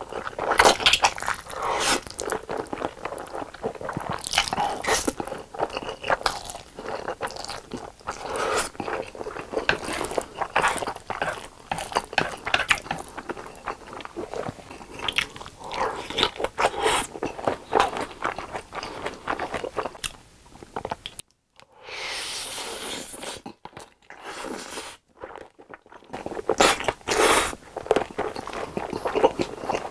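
Close-miked ASMR eating: a person biting and chewing fire noodles and kielbasa sausage, with rapid wet clicks, smacks and crunches. The eating is broken by two brief silences about two-thirds of the way through.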